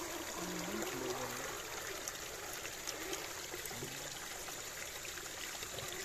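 Shallow creek water trickling steadily.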